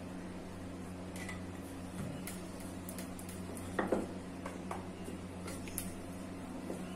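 Wooden rolling pin rolling out a puri on a round rolling board: a few light knocks and taps of the pin against the board, the loudest about halfway through, over a steady low hum.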